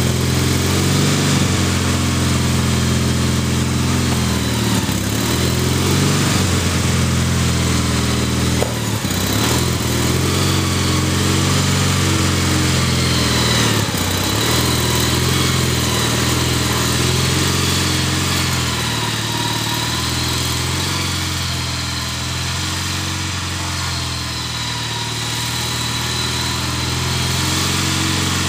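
Gravely garden tractor's engine running steadily while it pushes snow with a front plow blade. It drops a little in loudness about three-quarters of the way through.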